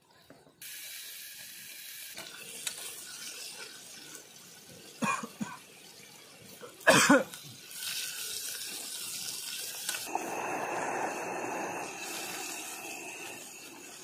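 Portable butane gas stove burning with a steady hiss under a steaming pan, the liquid in the pan bubbling more loudly from about ten seconds in. Two short coughs or throat sounds from the cook cut in, the louder about seven seconds in.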